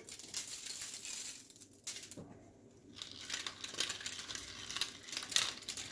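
Hand-twisted salt and pepper grinder mill grinding over vegetables, in two spells with a pause of about a second and a half between.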